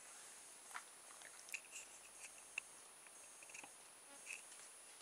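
Near silence: room tone with a few faint, scattered small clicks and taps.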